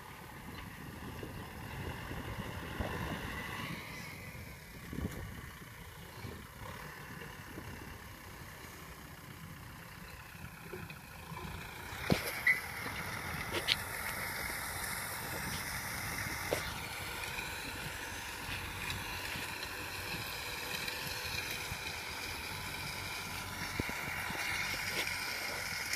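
Kubota farm tractor's diesel engine running steadily under load as it pulls a disc harrow through ploughed soil. A few sharp clicks come about halfway through.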